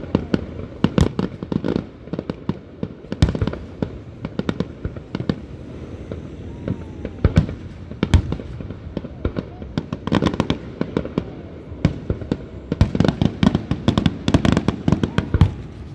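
Aerial fireworks display: shells bursting one after another in a rapid string of bangs and crackles, thickest about ten seconds in and again in a dense barrage near the end.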